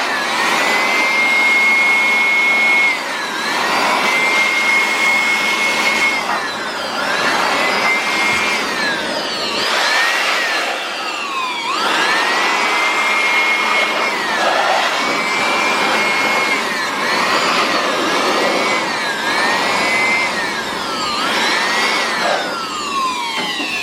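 Handheld electric blower blowing dust out of a desktop computer case. Its motor whine spins up, holds steady and winds down again over and over as the trigger is squeezed and released, over a steady rush of air.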